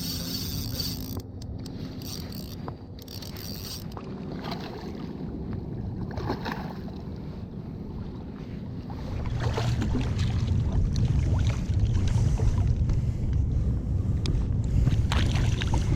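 Water sloshing and splashing in the surf while a hooked striped bass is played in, with wind rumbling on the microphone, louder in the second half.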